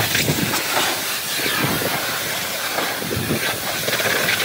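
Pressure-washer lance spraying a high-pressure jet of water against a car's side and wheel, a steady spray without a break.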